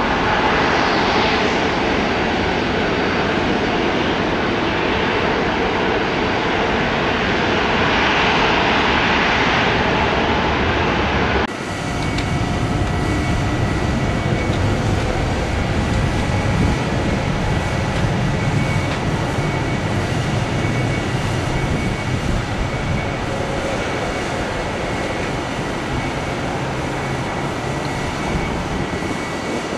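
Jet engines of an Embraer 175 on its takeoff run, a steady hissing roar. It cuts off abruptly about 11 seconds in. Then the engines of an Airbus A320neo run on the runway as it lines up and starts to roll: a low rumble that grows stronger for a while, with a steady high whine over it.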